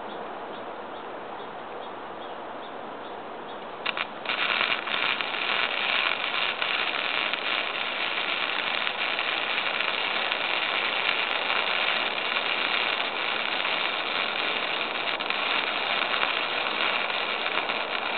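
Lincoln wire-feed welder striking an arc about four seconds in, with a brief stutter, then the steady crackling sizzle of the welding arc as a bead is laid.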